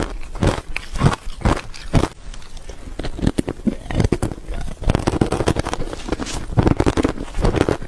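Close-up crunching of chip ice being bitten and chewed, a rapid run of sharp cracks and grinding crunches.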